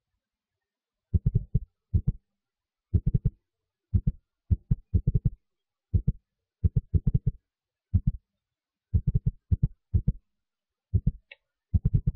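Series of short, deep thumps in irregular clusters of one to four, with silence between them.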